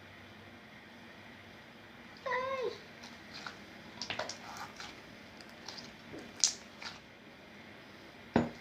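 A cat meows once, briefly, about two seconds in, followed by scattered light clicks and taps, with a sharp click near the end.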